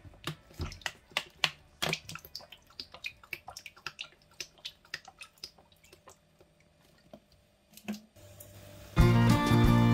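Cooking oil glugging and splashing as it is poured from a plastic bottle into a nonstick frying pan: a quick, irregular run of gurgles that thins out and stops about six seconds in. Background music starts loudly near the end.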